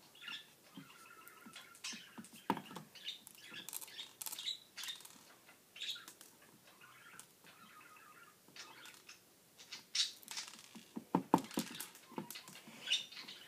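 Small seed beads clicking and rattling as fingers press and push them around on a glue-coated wooden flower cutout, in scattered light ticks with a denser run of clicks about eleven seconds in.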